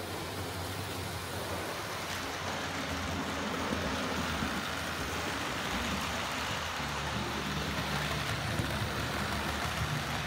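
Hornby 00 gauge model train, an L.M.S. Class 5 locomotive hauling maroon L.M.S. coaches, running on the layout: a steady rushing noise of the wheels on the rails with a low motor hum.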